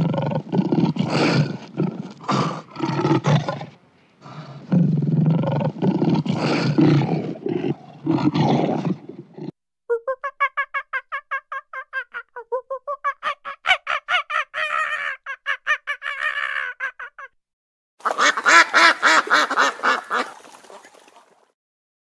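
A series of different animal calls in turn. There is a choppy, noisy stretch, then a quick run of pitched calls about five a second, and near the end ruddy shelducks honking.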